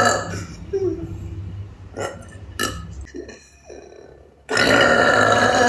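A person burping: the tail of one loud burp at the start, a few short sharp sounds in the middle, then one long, loud burp lasting about a second and a half near the end.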